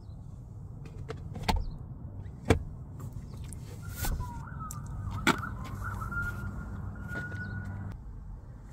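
Several sharp knocks and clicks from the car's interior being handled, over a low steady hum in the car's cabin. From about four seconds in, a faint high tone wavers slightly until shortly before the end.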